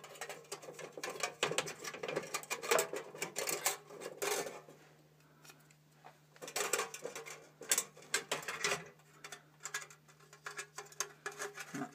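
Thin metal parts clinking and rattling as they are handled and fitted together at a bench vise, in a run of irregular light knocks with a short lull about halfway, over a steady low hum.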